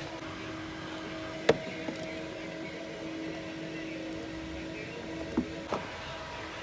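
A few sharp plastic knocks and clicks as car engine-bay trim (the cowl panel and the plastic engine cover) is handled, the loudest about one and a half seconds in and two more near the end. A steady hum runs underneath.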